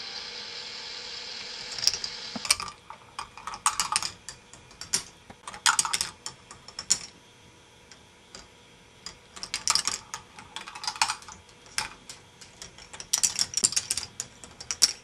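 Balls clattering and clicking through a K'nex ball machine's plastic tracks and parts, in bursts of rapid clicks a few seconds apart. A steady hiss at the start stops about two and a half seconds in.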